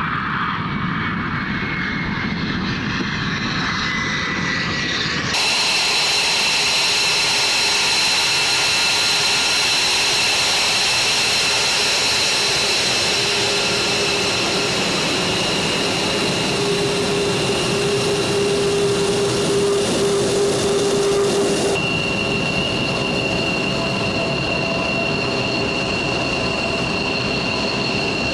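F-22 Raptor's Pratt & Whitney F119 turbofan jet engines running, a loud rushing noise with steady high-pitched turbine whine. In the first few seconds a whine falls slowly in pitch, and the sound changes abruptly about five seconds in and again later, as the shots change.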